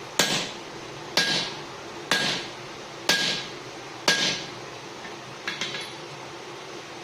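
Hand-forging hammer blows on steel at the anvil: five strikes about one a second, each with a short metallic ring, then a quick cluster of lighter taps.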